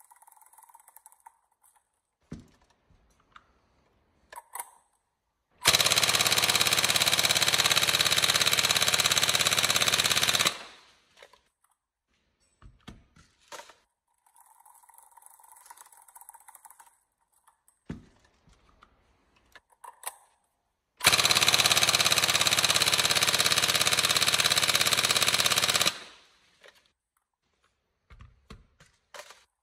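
Upgraded Tokyo Marui 416 NGRS airsoft electric gun, running a Warhead high-speed motor on a 7.4 V lipo, firing two long full-auto bursts of about five seconds each, about six seconds in and again about twenty-one seconds in, under a stress test for a jamming problem. Light handling clicks come between the bursts.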